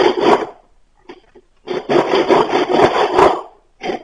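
A hand tool rasping and scraping into the end of a wooden stick in rough strokes. There is one long spell of cutting in the middle, with a short one at the start and another near the end.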